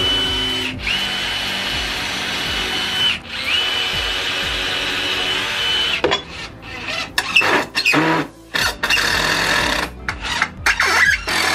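Power drill boring into 2x4 lumber with a steady high whine, stopping briefly twice, then running in short stop-start bursts in the second half.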